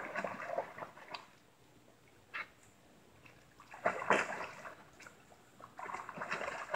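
Water sloshing and splashing as a border collie swims across a pond, coming in bursts with quiet gaps between.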